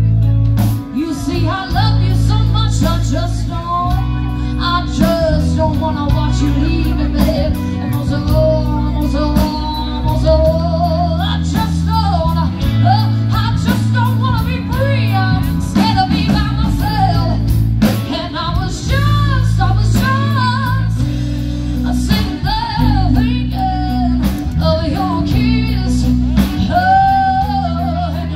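A band playing: a singer over guitar, a bass line that steps from note to note, and a steady drum beat.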